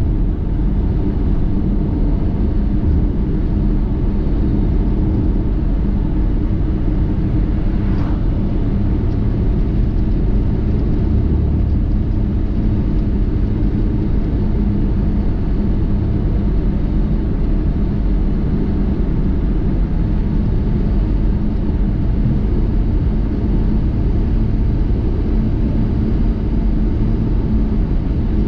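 Steady engine and road rumble of a vehicle being driven, with one brief click about eight seconds in.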